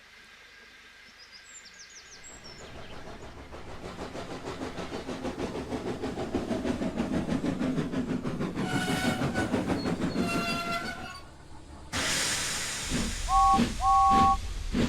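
A steam locomotive puffing in a steady rhythm that grows louder, sounding its whistle twice. After a sudden change, it gives two short toots of a two-note whistle and carries on puffing.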